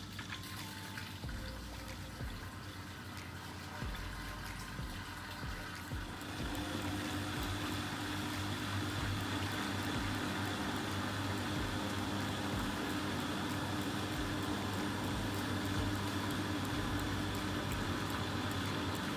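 Water running through a Vestel washing machine, with a steady machine hum underneath; the sound gets louder and fuller about six seconds in.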